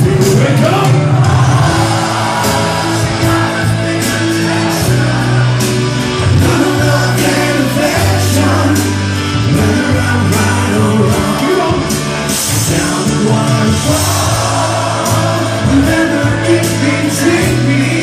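A man singing live into a microphone over loud amplified music with long held bass notes, recorded on a mobile phone.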